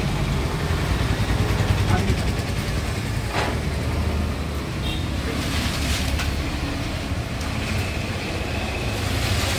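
Steady low rumble of road traffic with people talking in the background, and a few short knocks or scrapes.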